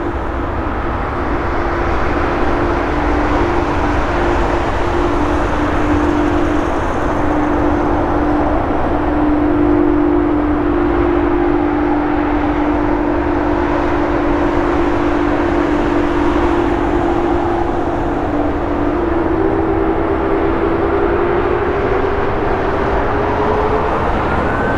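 Airbus Beluga A300-600ST's General Electric CF6-80C2 turbofans running with a steady rumble and a droning whine. The whine rises in pitch over the last few seconds as the engines spool up.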